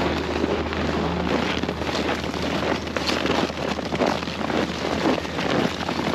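Wind buffeting the microphone in gusts, over a steady low hum.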